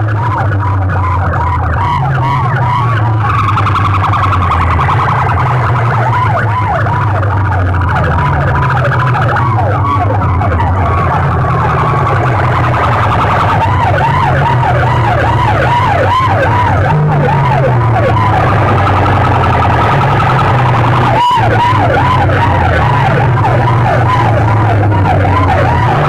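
Banks of horn loudspeakers on a sound rig playing a fast, warbling siren effect over a heavy, shifting bass line, very loud.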